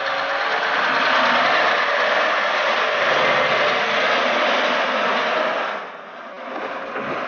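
Loaded Scania timber truck and trailer driving past close by: engine and tyre noise on the snowy road, loud and steady, falling away about six seconds in as it goes by.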